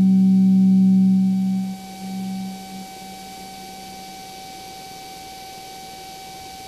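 Hybrid VCV Rack and Eurorack modular synthesizer sounding a low sustained drone tone that cuts off a little under two seconds in, followed by a briefer, quieter tone that ends at about three seconds. After that only a thin, steady high tone and faint hiss remain.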